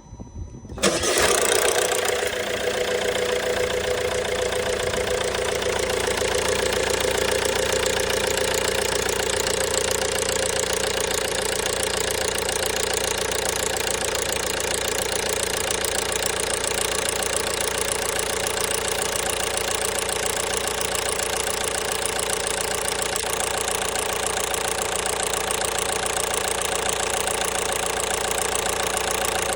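A 1.5 BlueHDi (DV5RC) four-cylinder diesel engine catches about a second in and then idles steadily. The knock running through the idle is the fault the owner is recording.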